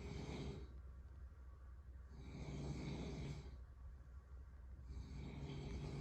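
Snoring in a slow, even rhythm: a snore about every two and a half to three seconds, each a low buzz under a breathy hiss. One snore fades out just after the start, another runs from about two to three and a half seconds in, and a third begins near five seconds.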